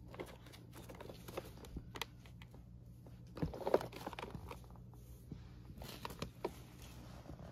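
Hands moving toys about on a surface: scattered light taps, scuffs and rustles, with a louder cluster of knocks and rustling about three and a half seconds in, over a low steady hum.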